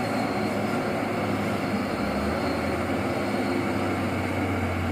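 A heavy truck's diesel engine running steadily under load, with tyre and road noise; no horn sounds.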